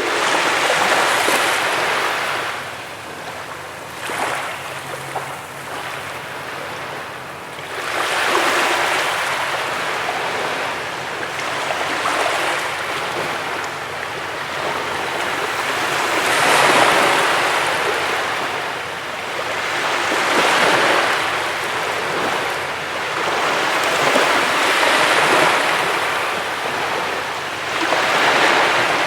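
Ocean waves breaking on a beach: a hiss of surf that swells as each wave breaks and fades as it washes back, every few seconds.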